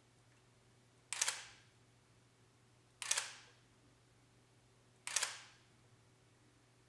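Nikon D40x DSLR firing three test shots about two seconds apart, each a quick cluster of clicks from the mirror and shutter with a short fade, the shutter cycling after its jammed drive gear wheel was freed.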